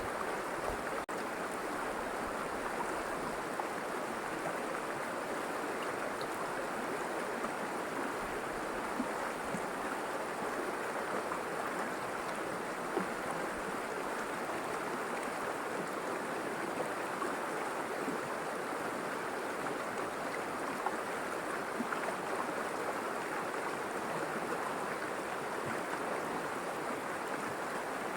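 River water flowing and babbling in a steady, even rush.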